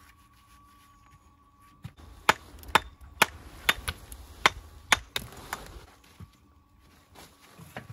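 Hammer blows on stone: about nine sharp strikes in quick succession over some three seconds, starting about two seconds in, as a mason dresses or knocks stone during walling.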